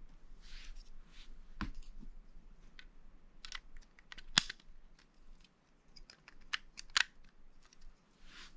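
Plastic Lego bricks being handled and pressed together: a string of small sharp clicks, the loudest about four and a half seconds in and again about seven seconds in, with a little soft rustling of pieces.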